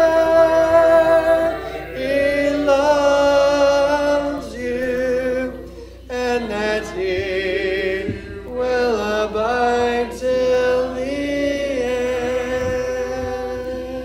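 Congregation singing a hymn a cappella in parts, with no instruments. Held notes change every second or two, and a long chord is held near the end.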